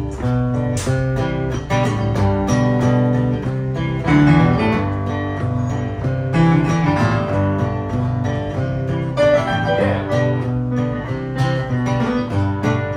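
Live acoustic guitar strumming with an electric keyboard, the instrumental opening of a song just counted in, with no singing yet.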